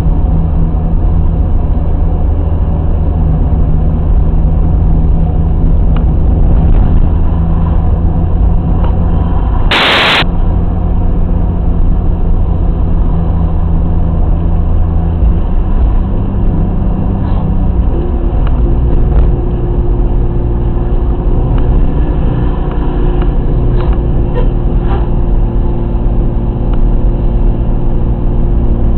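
BMW E30's M50B20 2.0-litre inline-six engine running while the car drives, heard from inside the cabin, its steady engine note changing about 16 to 18 seconds in. A short, sharp burst of noise about ten seconds in, and a few light clicks later on.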